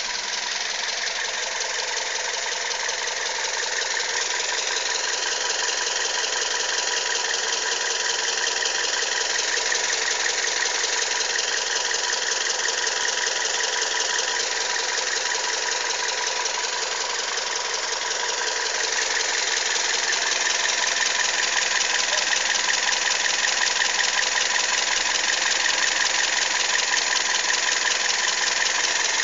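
Toyota Yaris engine running with a strange, fast, even ticking clatter mixed into its sound; the owner does not know its cause. It gets a little louder about two-thirds of the way in.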